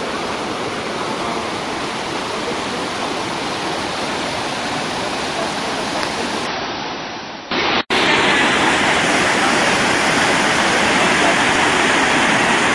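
Steady rushing of the Rhine Falls and the white-water rapids below them. A little past halfway the sound cuts out for a moment, then comes back louder and brighter.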